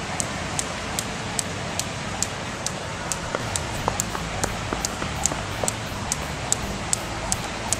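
Jump rope slapping concrete pavement in a steady rhythm, about two to three sharp slaps a second, over a steady background hiss.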